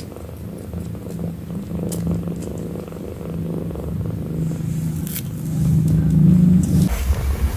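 Cat purring steadily and close up, a low even pulsing hum. It cuts off abruptly near the end and a deeper rumble takes over.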